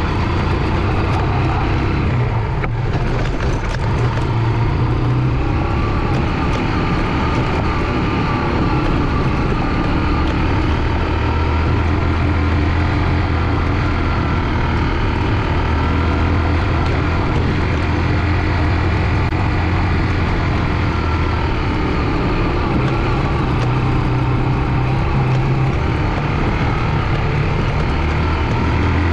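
Honda CG 125 motorcycle's single-cylinder four-stroke engine running steadily with a low rumble.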